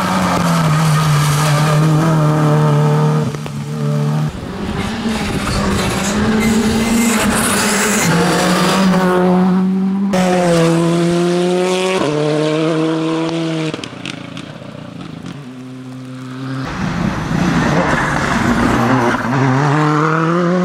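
Rally cars racing flat out past the roadside in several quick cuts: engines held at high revs, the pitch jumping and sliding with gear changes. Engine noise is quieter about two-thirds of the way through, then another car comes up loud near the end.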